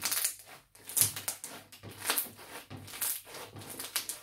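Foam slime packed with styrofoam beads being squeezed and kneaded by hands, giving a continuous irregular run of crackling little pops.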